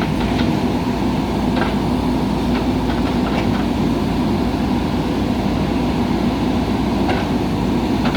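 JCB 3DX backhoe loader's diesel engine running steadily, with a few faint clicks over it.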